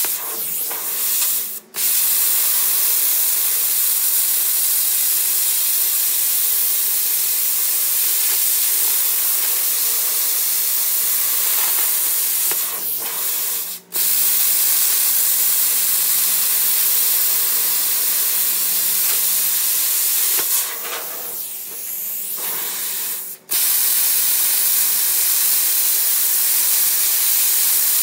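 Handheld plasma cutter cutting sheet metal freehand: the arc and air jet give a loud, steady hiss. The hiss cuts out briefly three times and runs softer for a couple of seconds about three-quarters of the way through.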